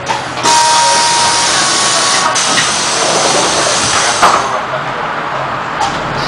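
Compressed air hissing loudly from a city bus's pneumatic system, starting suddenly and lasting about four seconds, with a clunk partway through and another as it stops. The diesel engine idles low underneath.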